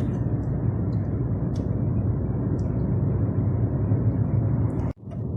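DAF truck's diesel engine and road noise droning steadily inside the cab while driving. The driver suspects this engine of misfiring under load, blaming an injector or the high-pressure pump, though he is not sure it isn't just how it sounds. The sound cuts out for a moment near the end.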